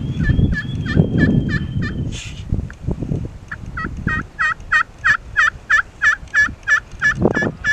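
Turkey yelps: two long runs of evenly spaced notes, about three a second, the second run longer. Low rustling noise sits under the first run.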